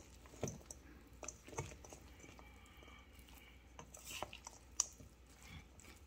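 Faint, irregular squishing and light knocks of a spatula stirring chopped pork in a stainless-steel mixing bowl, with one sharper click in the second half.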